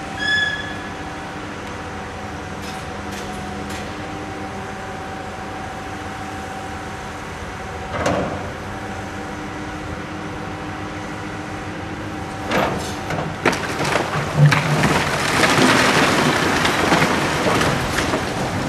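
Excavator engine running steadily as it demolishes a brick tenement, with one crash about eight seconds in. From about twelve seconds in, brickwork breaks away and rubble comes crashing down in a long run of knocks and rumbling, loudest near the end.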